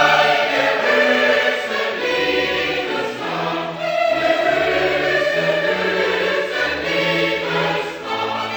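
A choir singing held chords over a bass line that steps from note to note.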